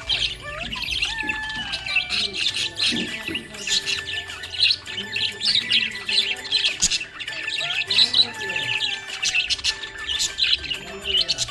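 Budgerigars chirping and chattering in a dense, busy stream of quick high chirps.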